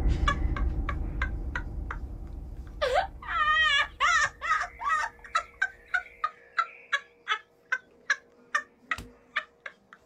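Edited-in sound effects: a low music bed fading away while a steady ticking beat runs at about three clicks a second. From about three seconds in, high warbling calls come and go over it.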